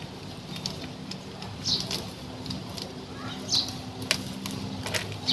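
Gloved hands working damp potting soil off a succulent's root ball: soft crumbling and scattered small clicks as clumps break and fall into a plastic basin. A few short high chirps sound twice in the background.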